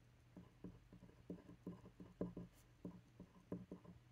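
Faint scratching and tapping of a glass dip pen writing on a paper swatch card: a run of short, irregular strokes a few times a second, starting about half a second in, over a steady low hum.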